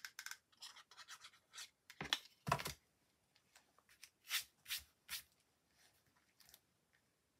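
Paper cutouts being glued and pressed onto a card by hand: scattered short rustles, scrapes and rubs of paper, with two louder knocks a little over two seconds in.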